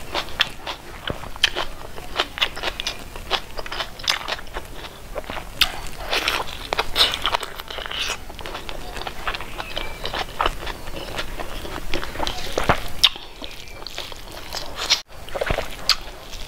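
Close-miked eating sounds: chewing with wet, sticky mouth clicks and smacks as a person eats pork curry and rice by hand, with squishing as fingers work through the rice.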